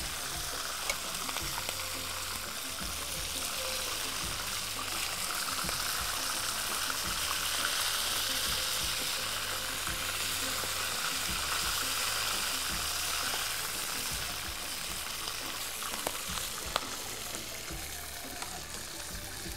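Pieces of hammour (grouper) frying in hot fat in a frying pan: a steady sizzle, a little louder in the middle, with a few faint clicks of metal tongs.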